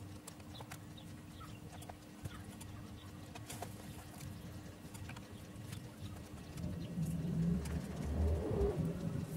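A dove cooing in low, repeated swells, starting about two-thirds of the way in. Before that there are only a few faint light clicks over a steady low hum.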